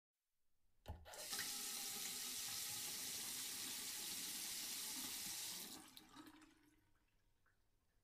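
Tap water running into a sink. It starts abruptly about a second in, flows steadily, then is shut off around six seconds and trails away.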